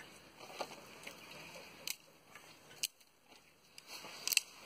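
Soft, wet squishing of masala-coated raw quail meat being torn apart by hand against a knife blade, with a few sharp clicks.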